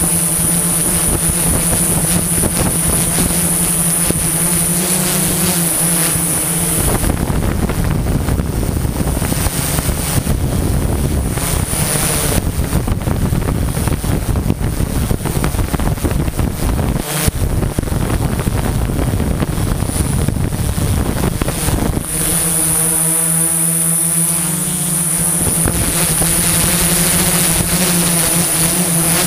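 Multirotor drone's motors and propellers humming steadily, picked up by the camera mounted on it, with a high steady whine above the hum. From about seven seconds in until about twenty-two seconds in, a rough rush of wind noise covers the hum, then the steady motor sound returns.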